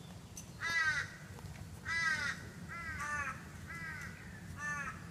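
A bird calling five times, each call a short cry that bends down in pitch; the first two are the loudest.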